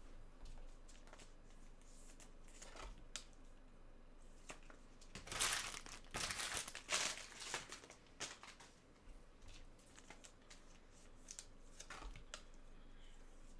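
Trading-card packaging crinkling and tearing as cards and wrappers are handled, with light scattered clicks and a louder stretch of crinkling from about five to eight seconds in.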